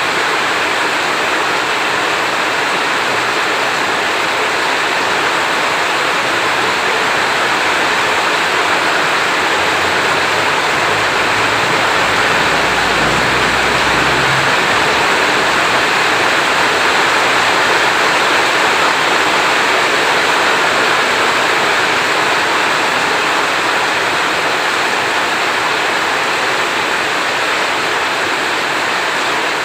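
Heavy rain falling steadily, with a low rumble of distant thunder swelling and fading near the middle.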